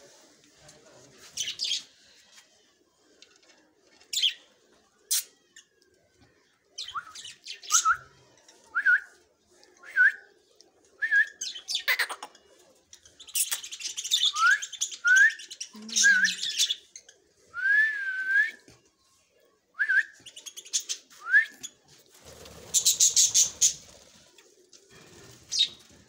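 Budgerigars chirping and chattering: about a dozen short rising chirps, mixed with scratchy chatter bursts, with a longer, louder scratchy burst near the end.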